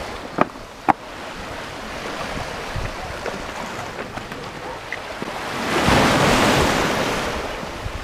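Small sea waves washing over a rocky, pebbly shore, one wash swelling loudest about six seconds in. Two sharp clacks near the start, from stones knocking underfoot.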